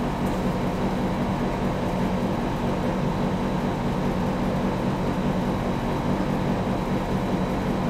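Room air conditioner running, a steady hum over an even rush of air.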